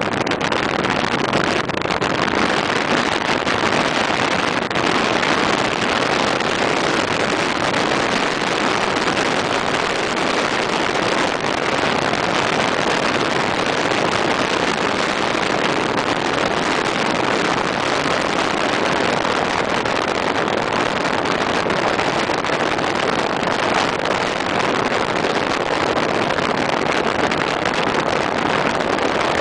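Steady road and wind noise of a car driving at speed, heard from inside the car.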